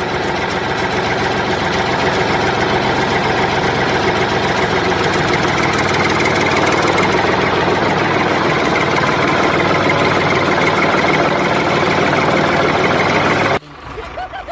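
Diesel tractor engine idling steadily, cutting off abruptly near the end.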